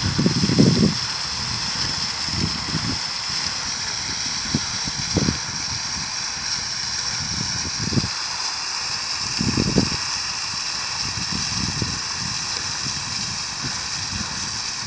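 Fountain water jet splashing steadily down into its basin, a continuous even rush of water. Irregular short low rumbles come and go over it.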